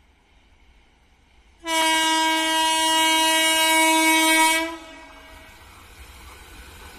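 Electric locomotive's horn sounding one long, steady blast of about three seconds as the train approaches, cutting off sharply; the rumble of the oncoming train then rises toward the end.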